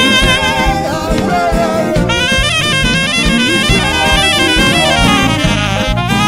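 Upbeat band music: a lead melody with vibrato plays fast stepping runs over a steady drum beat and bass.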